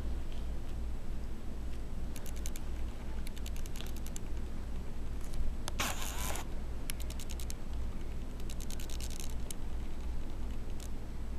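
Light scratching and clicking in short quick runs, four or five times, with one louder scrape about six seconds in, over a steady low hum.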